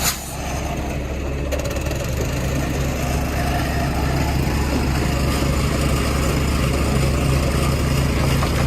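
Heavy diesel engine of a concrete mixer truck idling steadily, with a brief sharp knock right at the start.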